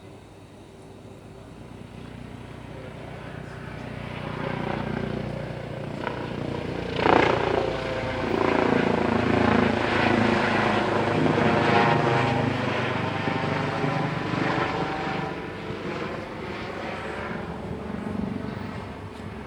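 Helicopter flying overhead: its engine and rotor noise grows louder, peaks in the middle with a pulsing rotor beat, then fades away as it passes.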